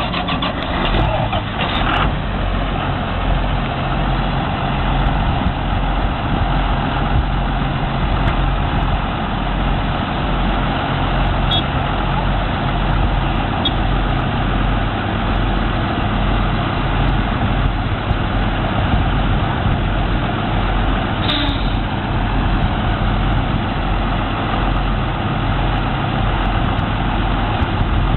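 John Deere tractors' diesel engines running steadily under load, hauling a loaded grain trailer through mud.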